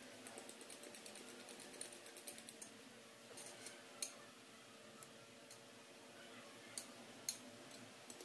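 A spoon clicking against a bowl while whipped egg whites are worked and scraped out: a quick run of about five light clicks a second, then a few single sharper knocks.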